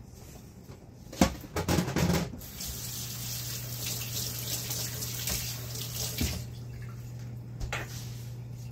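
Kitchen tap running into a sink for a few seconds and shut off about six seconds in, after some knocks and clatter about a second in.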